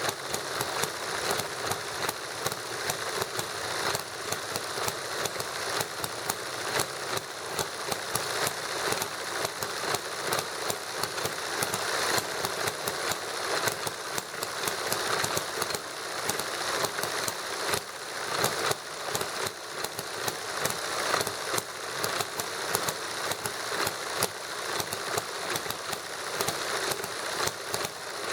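Two model engines running together, a small hit-and-miss gasoline model engine and a Stirling engine, giving a fast, steady stream of clattering clicks and pops.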